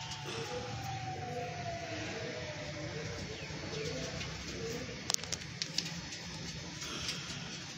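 Domestic pigeons cooing, short low notes repeating about twice a second. A faint long falling tone runs under the cooing in the first few seconds, and a few sharp clicks come a little past the middle.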